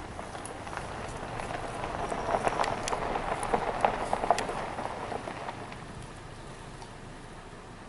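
Black bear tearing and chewing grass and plants: a run of crackling, rustling crunches that swells over a few seconds and then fades.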